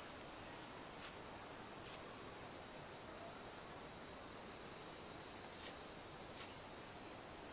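Chorus of forest insects keeping up a steady, high-pitched drone.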